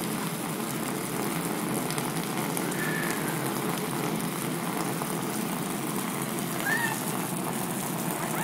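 Steady hum of the electric blower that keeps an inflatable water slide inflated, with water from a garden hose spraying onto the slide. Two short high squeaks rise and fall, about three seconds in and again near seven seconds.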